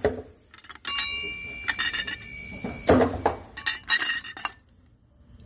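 Loose metal transmission parts, bolts and clutch fork hardware, clinking against each other as they are handled and dropped. A clink about a second in rings on for about two seconds, followed by a heavier knock and a short flurry of clinks.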